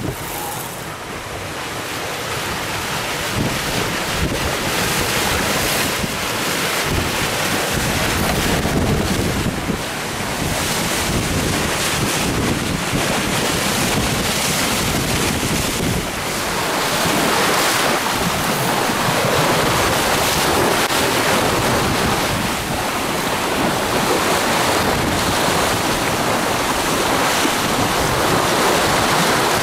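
Loud wind buffeting the microphone over the rush and splash of water along a J80 sailboat's hull as it sails fast through choppy water. The noise grows a little louder about halfway through.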